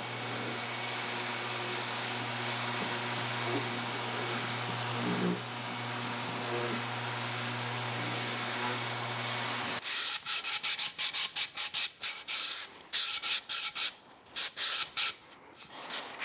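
Random orbital sander with a dust-extraction hose running steadily on wood. About ten seconds in it stops abruptly, and quick, uneven rubbing strokes follow, about three a second: hand sanding of the wooden tiller.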